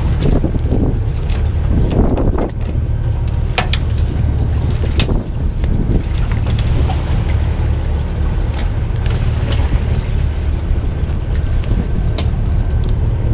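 Small fishing boat's engine running with a steady low drone, with a handful of sharp clicks and knocks from gear on deck scattered through it.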